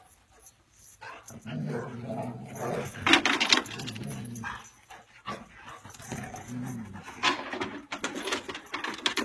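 A dog growling during play, starting about a second in, with two louder, sharper sounds about three seconds in and again about seven seconds in.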